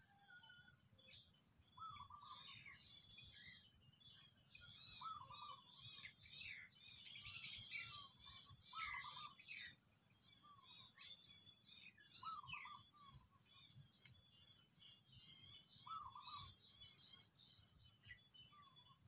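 Wild birds chirping in quick runs of high arching notes, with a few lower calls in between, over a steady high-pitched insect drone; all faint.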